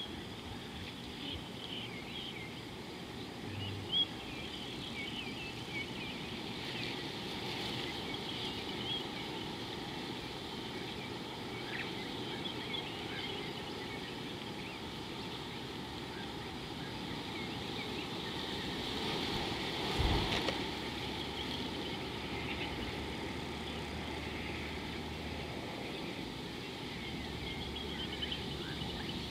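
Steady outdoor background hiss with many small bird chirps scattered through it, and one brief bump about twenty seconds in.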